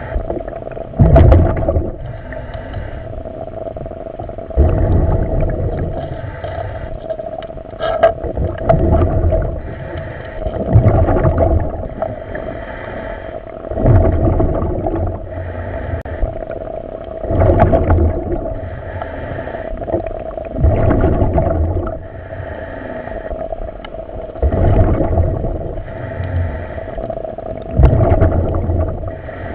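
A diver breathing underwater through diving gear, a loud gurgling breath about every three to four seconds, over a steady hum.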